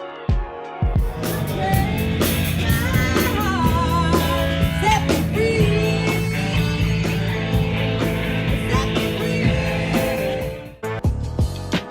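Rock-and-roll style music with guitar and a singing voice. It drops away suddenly near the end.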